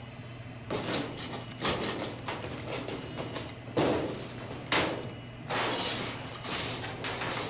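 A crowbar prying at the padlocked hasp of a metal cabinet: a series of sharp metal clanks and scrapes, heard as film soundtrack.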